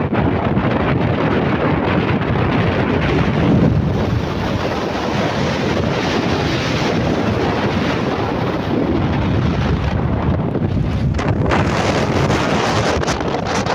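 Waterfall's falling water making a steady, loud rushing noise.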